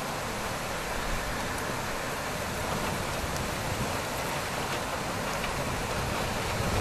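Heavy rain pouring down steadily, a dense even hiss with no let-up.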